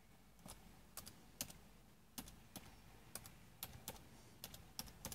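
Computer keyboard keys being tapped in a short run of typing: faint, irregularly spaced clicks as a name is entered into a text field.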